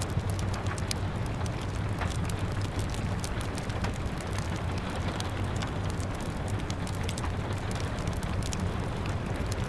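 Steady rain with a low rumble under it, mixed with the frequent small pops and crackles of a burning wood fire.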